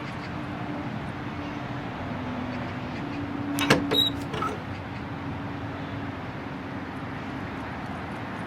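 A steady low hum, with a quick cluster of sharp clicks about four seconds in, one leaving a brief high ring.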